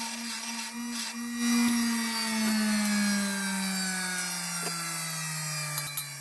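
Bench grinder's electric motor coasting down after switch-off: a steady hum that slowly sinks in pitch as the wheel spins down. A few sharp taps of a mallet on steel tubing come near the end.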